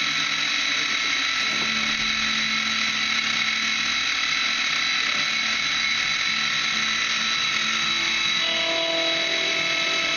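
Milling machine running and milling knife bolster stock: a steady machine whine with several constant high tones over a hiss, and a lower tone joining about eight seconds in.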